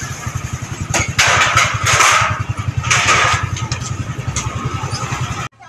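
A motorcycle engine running close by with a fast, even beat, revving up loudly about a second in and again around three seconds in. It cuts off suddenly near the end.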